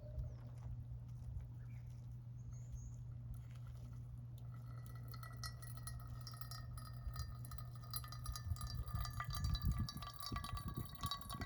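Light clinks of glass or tableware, scattered and growing more frequent in the second half, over a steady low hum. Music comes in about halfway through.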